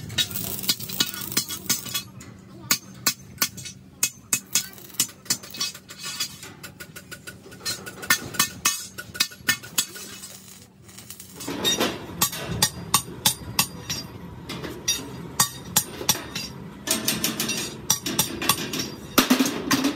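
Metalwork by hand: a string of sharp clinks and knocks, about one or two a second, denser and fuller from about halfway in.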